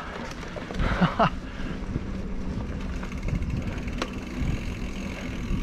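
Specialized Fuse mountain bike rolling along a dirt forest trail: steady tyre noise and rattling of the bike, with a short pitched sound about a second in and a sharp click about four seconds in.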